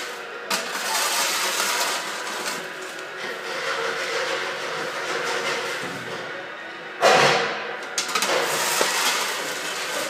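A push broom scraping paper scraps across a concrete floor, with music playing. There is a loud clatter about seven seconds in.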